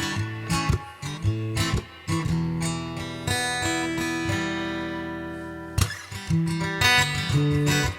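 Acoustic guitar playing an instrumental passage of strummed and picked chords. About three seconds in, one chord is left to ring and fade for a couple of seconds before the rhythmic strumming starts again near six seconds.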